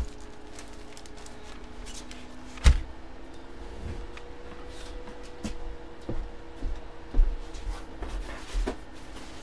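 Items being picked up and handled: a series of knocks and thumps, the loudest about two and a half seconds in and several more in the second half, over a steady low hum.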